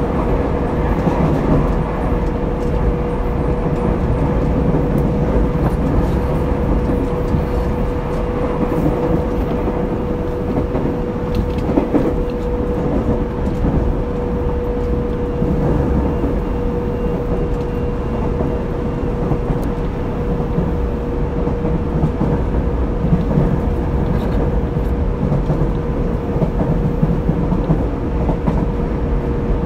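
Onboard running sound of a Tobu 30000 series electric train, recorded in motor car MoHa 33609, at steady speed. Wheels rumble on the rail under a steady hum that holds one pitch, with a single knock about twelve seconds in.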